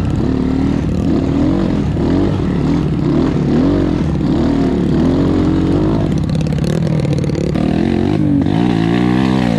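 Trail motorcycle engine revving up and down over and over, the throttle blipped again and again as the bike picks its way slowly over large loose rocks.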